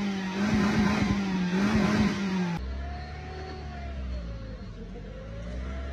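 Parked car engine running at the exhaust, a strong wavering drone over a rough noise. About two and a half seconds in it cuts to a quieter steady low hum with a slowly rising and falling whine from another running car.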